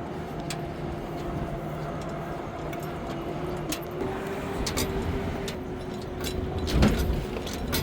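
An engine running steadily at an even pitch, with scattered sharp clicks and a louder knock a little before seven seconds in.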